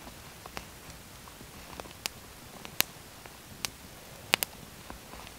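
Wood campfire crackling, with irregular sharp pops from the burning sticks and a quick pair of pops near the end.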